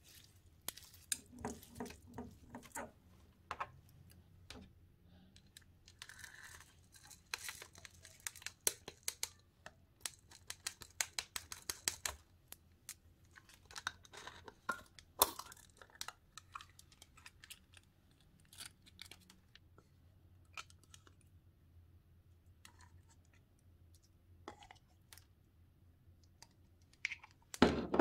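Sticky slime with sprinkles mixed in being squeezed and pulled apart by hand, making a run of small sticky clicks and pops that thins out in the second half.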